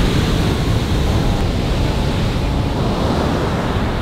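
Ocean surf breaking and washing up a sandy beach, a steady loud rush of noise, with wind rumbling on the microphone.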